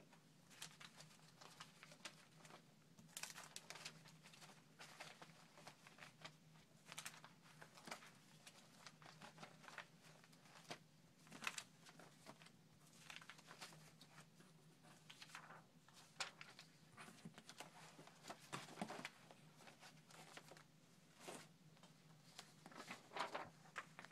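Faint rustling and shuffling of old paper photographs and a magazine being handled and leafed through, with irregular soft scrapes and slaps on a tabletop.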